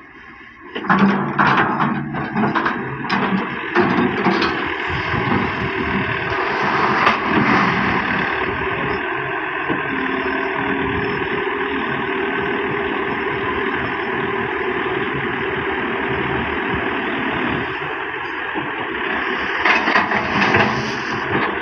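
John Deere 595D wheeled excavator working: its diesel engine runs steadily as the machine swings and digs. Sharp knocks and rattles of the bucket in gravel come about a second in and again near the end.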